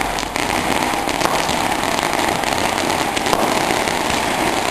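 Firecrackers going off in a long, dense crackle of small pops, steady throughout with no single big bang.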